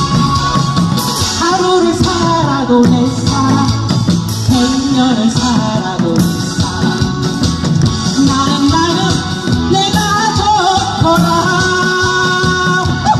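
A woman singing a Korean song into a handheld microphone over amplified backing music, both coming through PA speakers.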